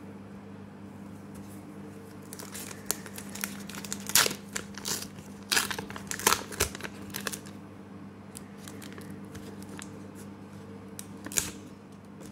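A Pokémon card booster pack wrapper crinkling and tearing as it is opened by hand. There is a run of crackles between about two and eight seconds in and one more crackle near the end.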